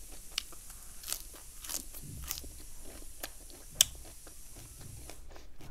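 Crisp lettuce leaf bitten and chewed close to the microphone: scattered crunches over a low chewing rumble, the sharpest crunch a little before four seconds in.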